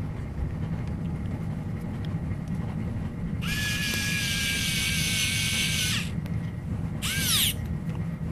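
Small electric mini screwdriver driving a tiny screw into a carbon-fibre duct ring. It runs with a steady whine for about two and a half seconds, then gives one short half-second burst that spins up and winds down.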